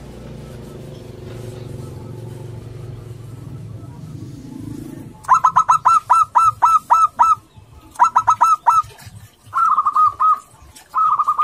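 Male zebra dove (local perkutut) singing: after about five seconds of low steady hum, a fast run of short staccato coos, then a shorter run, then two short rolling trills, the last one carrying on past the end.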